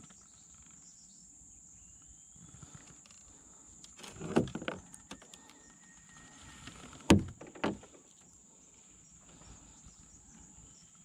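A steady high-pitched insect drone, with a few knocks and rustles: a cluster about four seconds in and the loudest sharp knock about seven seconds in, followed by a smaller one.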